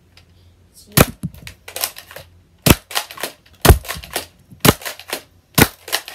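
Nerf Elite Flipfury blaster being primed and fired over and over: five sharp plastic snaps about a second apart, with lighter clicks and rattles of the mechanism between them.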